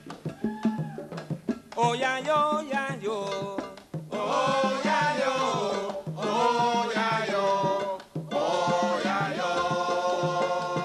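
Live Afro-Cuban jazz ensemble playing: sharp percussion strokes, then a pitched melody entering about two seconds in. The melody comes in long phrases, with short breaks near four and eight seconds in.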